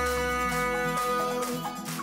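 Background music: a song with one long held note.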